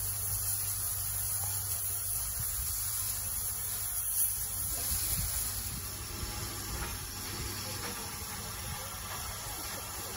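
Steam locomotive standing and hissing steam, a steady high hiss over a low rumble.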